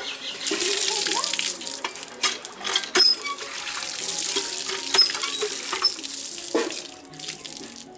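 Water gushing from a hand pump's spout into a steel colander, splashing over cut fish pieces being rinsed and draining through the holes. A few sharp knocks sound about three and five seconds in, and the water dies away near the end.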